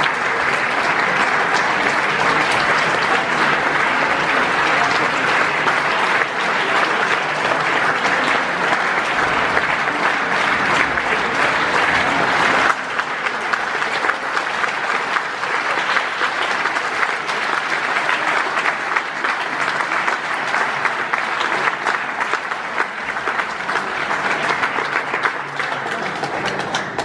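Audience applauding in a large hall, a dense steady clapping that drops suddenly in level about halfway through and eases slightly near the end.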